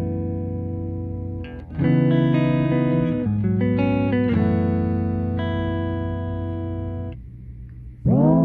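Background music: guitar playing long held chords that change twice, fall away a little after seven seconds, and then a new chord slides in near the end.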